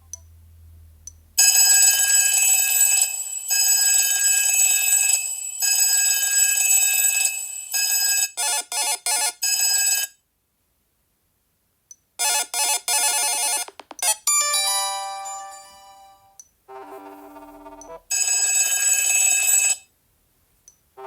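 Sony Xperia phone alarm tones previewed one after another: several different electronic tunes played through the phone's speaker, each cut off after a few seconds, with a pause of about two seconds near the middle.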